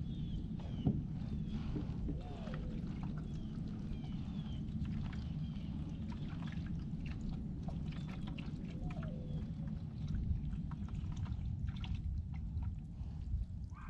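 Water lapping and gurgling against a small boat's hull, with scattered light clicks and knocks.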